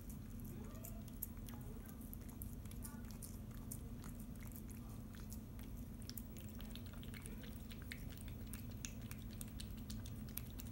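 A cat eating canned wet food from a ceramic dish: a run of small, irregular wet chewing clicks that come thicker in the second half.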